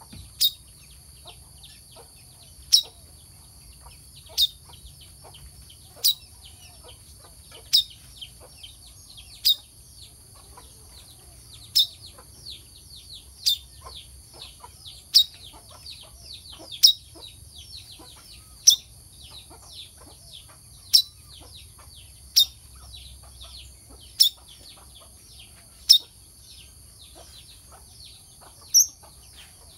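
Brown-throated sunbird (kelicap mayang kelapa) calling: a sharp, high chirp repeated about every second and a half to two seconds, with fainter quick twittering between the calls.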